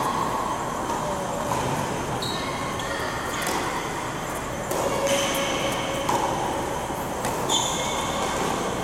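Tennis rally on an indoor hard court: several sharp racket-on-ball hits a second or more apart, with short high squeaks of shoes on the court. A steady hum of the large hall runs underneath.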